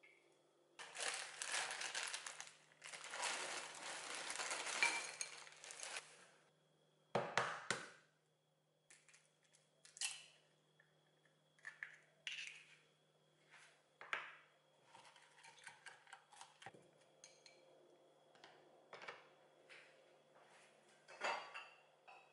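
Food preparation in a glass mixing bowl. First a few seconds of dense rustling and scraping, then a couple of sharp knocks about seven seconds in, then wooden chopsticks clicking and scraping against the glass as an egg is stirred into chopped vegetables and corn.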